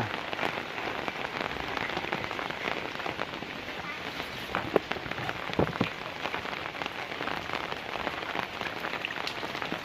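Steady rain falling on plants and ground, an even hiss, with a couple of sharper drop-like taps near the middle.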